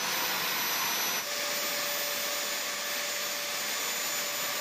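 Stand-mounted electric diamond core drill running, its water-fed core bit cutting into concrete: a steady motor whine over an even rushing noise, the whine's pitch shifting about a second in.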